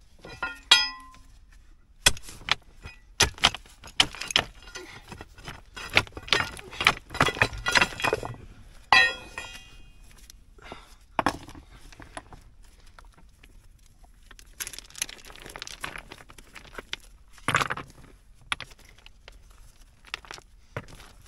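Loose stones and rock chips clinking and clattering against each other as they are shifted and pulled out by gloved hands. A dense run of knocks for several seconds, then only scattered clinks.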